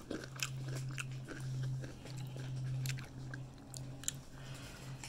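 Close-up eating sounds: biting into and chewing pizza topped with a Flaming Hot Doritos chip, with scattered crunches and mouth clicks. A steady low hum runs underneath.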